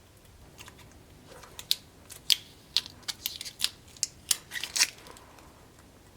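A quick, irregular series of about ten sharp clicks over roughly three seconds.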